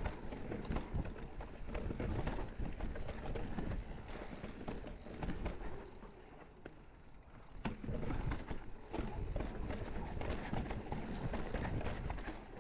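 Mountain bike rolling down a rocky trail: tyres on dirt and rock ledges with irregular knocks and rattles from the bike over a steady low rumble. It eases briefly about halfway through, then picks up again with a sharp knock.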